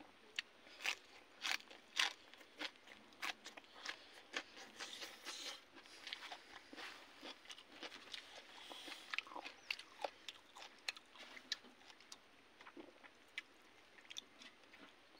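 A person chewing and crunching food, with a quick run of sharp crunches over the first several seconds and scattered crunches and mouth sounds after that.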